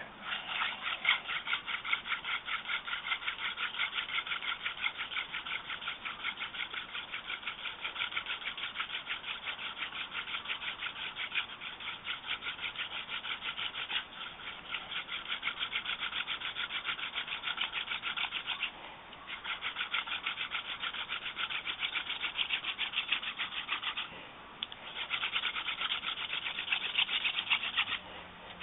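Yucca spindle whirled fast in a hand drill against a yucca hearth board: a rapid, rhythmic rubbing squeak of wood on wood in the notch, broken by three short pauses.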